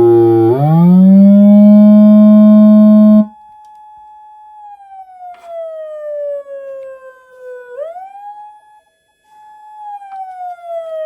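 Japanese police-style electronic siren from a PATLITE SAP-50 siren amplifier, played through a Federal Signal Rumbler low-frequency speaker, which adds a deep low tone under the siren. The pitch sweeps up and holds loud, then about three seconds in the deep tone cuts off abruptly. What remains is a much quieter siren tone that slides slowly down, swoops back up once, and slides down again.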